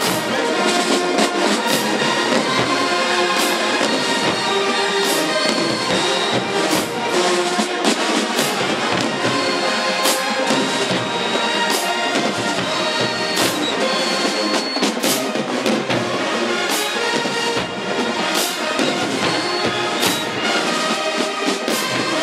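HBCU marching band playing loudly: brass carrying the tune over a drumline, with sharp cymbal and drum hits throughout.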